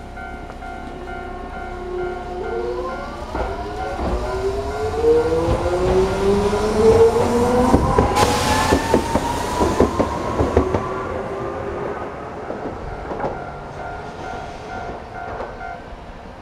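A Japanese level-crossing alarm rings in a steady repeated pulse as a Hiroden Miyajima Line train passes. The train's traction motors whine in several rising tones as it accelerates, and its wheels clack over the rail joints. The alarm stops near the end.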